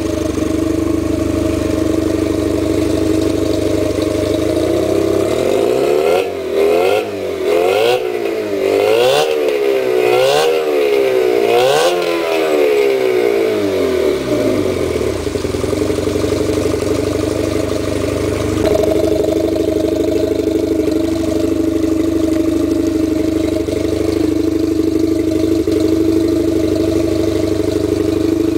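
Evinrude E-TEC 60 hp two-stroke direct-injection outboard running steadily at idle, then revved up and down about five times in quick succession a few seconds in, before settling back to a steady idle.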